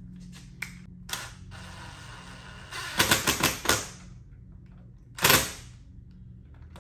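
Cordless DeWalt impact driver tightening the screw of a stove pipe's wall-bracket clamp into a nut held with pliers. It runs steadily for about two seconds, then hammers in a quick cluster of impacts about three seconds in, with one more short burst near the end.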